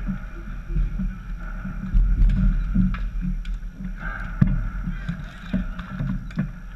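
Low wind rumble on the microphone with scattered clacks and knocks of hockey sticks and ball on the plastic dek hockey court, the sharpest knock about four and a half seconds in.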